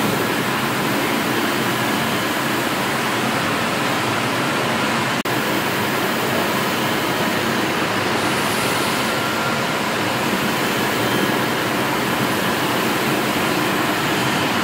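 Stationary steam engine running: a steady, even mechanical noise with no distinct beat standing out, briefly dropping out about five seconds in.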